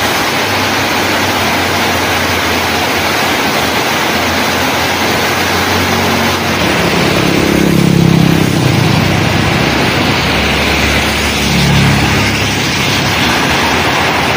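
Heavy rain pouring down in a steady hiss. A motorbike passes on the wet road with a low engine rumble that swells and fades about eight seconds in, and another vehicle passes a few seconds later.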